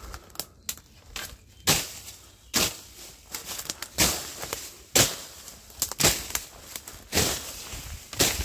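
Footsteps pushing through dense leafy undergrowth: leaves and stems swishing and rustling against the legs in short bursts, about one step a second.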